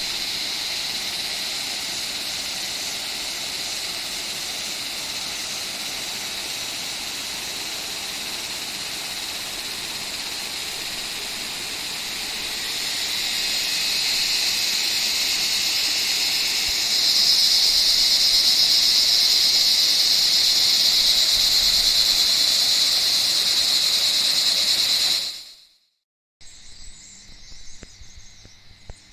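Cicada chorus in the forest: a loud, steady, shrill drone that swells louder about halfway through and again a little later, then cuts off abruptly near the end, leaving faint outdoor ambience.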